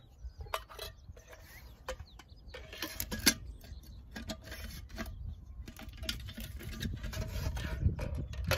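Irregular clicks, knocks and scraping of a FireMaple backpacking stove kit being handled, with a fuel canister and its stand being fitted back into the cook pot. A low rumble runs underneath.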